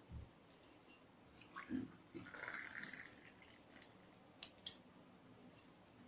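Faint handling of kitchen utensils: a soft knock at the start, a few small knocks and a short soft noise about two seconds in, then two quick light clicks.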